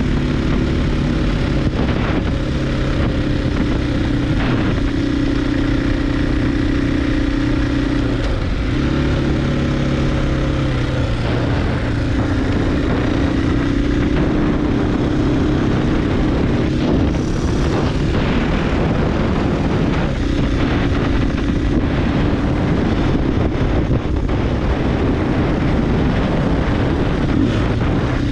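KTM 500 EXC-F single-cylinder four-stroke dirt bike engine running at a steady cruise, its pitch dipping and recovering briefly a few times as the throttle is eased and reopened.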